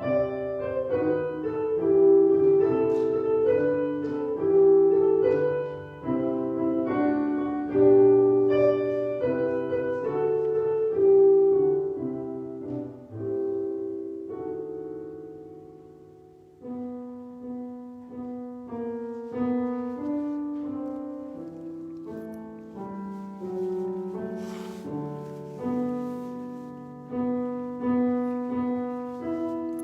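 Solo piano playing a slow, gentle piece in chords with a melody on top. The phrase dies away about halfway through, then the playing resumes more softly.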